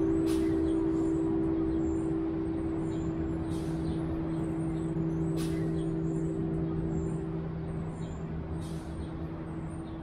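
A large church bell from the cathedral's 11-bell chime, its hum dying away slowly after being struck. Several low steady tones linger and fade, and the highest of them dies out about seven seconds in.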